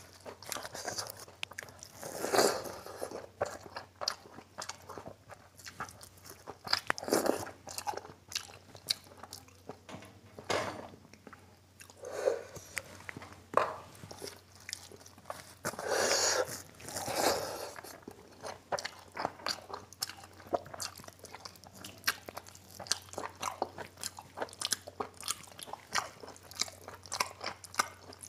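Close-up eating sounds: chewing and biting mouthfuls of mutton curry and rice, with the sticky sound of fingers mixing rice into the gravy. Quick small clicks run throughout, with a few louder, longer mouthfuls about 2 s, 7 s and 16 s in.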